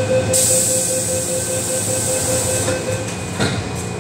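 MTR M-Train door-closing warning: a rapid, steady beeping tone with a high hiss over the train's low hum, then the doors shut with a knock about three and a half seconds in.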